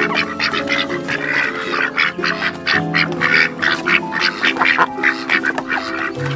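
A flock of ducklings peeping, many short calls overlapping in a rapid, continuous chatter. Background music of plucked strings plays underneath.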